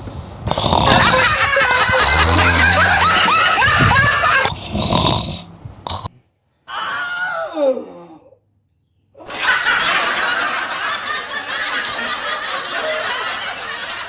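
Laughter in loud bursts, with a sliding sound falling steeply in pitch about seven seconds in, followed by a steadier, noisier stretch of laughing near the end.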